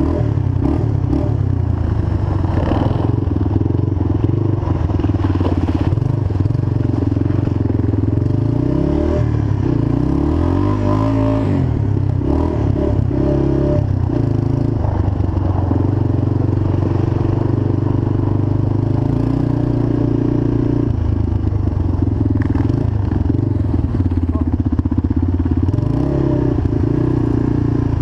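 ATV engine running steadily under way, its pitch dropping and climbing again near the middle.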